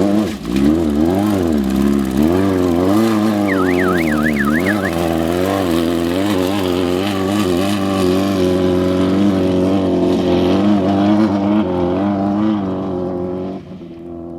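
An off-road race vehicle's engine revving up and down in quick swells, then running at a steadier pitch, fading away near the end.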